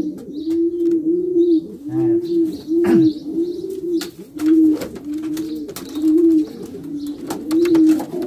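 Several racing pigeons cooing, low overlapping coos about twice a second. In the second half there are light clicks and rustles.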